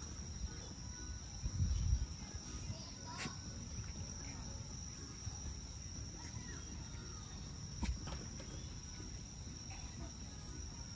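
Insects chirring in a steady, unbroken high-pitched drone, over a low rumble, with a couple of sharp clicks, one a few seconds in and another near the end.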